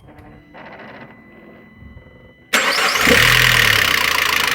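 Citroën C4 2.0 engine starting: a faint hum with steady tones, then about two and a half seconds in it fires suddenly, revs up briefly and settles into running. The engine makes a noise that the mechanic traces to no oil reaching the exhaust camshaft.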